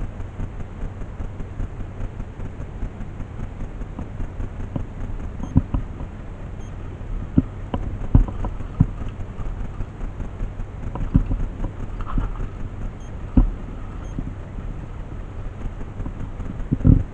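Steady low rumble of wind on the microphone, with a scattering of irregular knocks and thumps.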